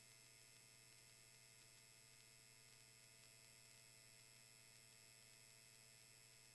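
Near silence on the cockpit intercom feed: only a faint, steady electrical hum made of a few even tones.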